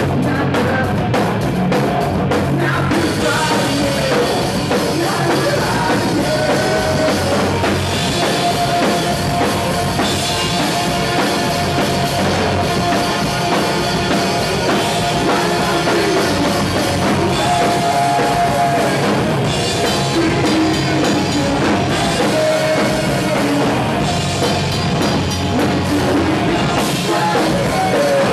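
Live rock band playing: distorted electric guitars, a drum kit and a sung lead vocal, loud and continuous.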